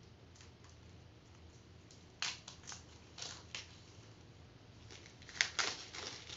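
Plastic wrapping crinkling in a few short rustles as a large bath bomb is unwrapped by hand, with a cluster of crinkles about two seconds in and two louder ones near the end.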